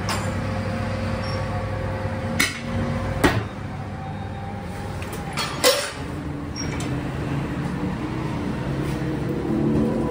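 Tyre-changing machine at work: a steady low machine hum with three sharp metallic clanks, two close together a couple of seconds in and one a little later.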